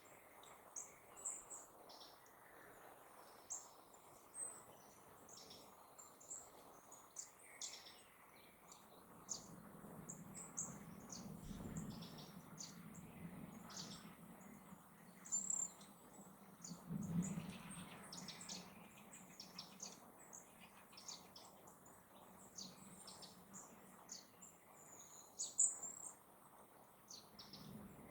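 Small birds chirping and calling, many short high chirps scattered throughout. A faint low rumble swells and fades through the middle.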